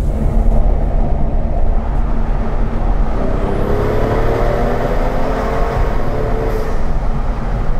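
BMW M2 Coupe's turbocharged straight-six through an Akrapovič exhaust, heard from inside the cabin while driving through a road tunnel: a steady low drone, with the engine note rising under acceleration from about three seconds in, then dropping away near the end.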